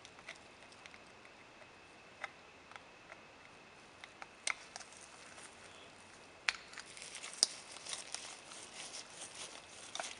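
Screwdriver working a frame screw out of a Colt Open Top revolver, metal on metal: faint, scattered sharp clicks, then a quicker run of small clicks and scrapes after about six and a half seconds.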